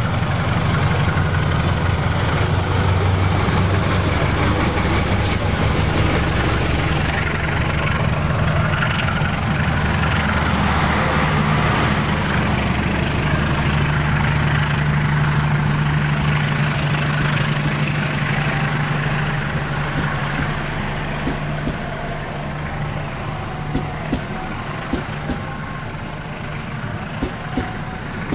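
A CC 201 diesel-electric locomotive runs past with its engine droning low and steady, then its passenger coaches roll by. Their noise is quieter, with a few sharp clicks of wheels over rail joints near the end.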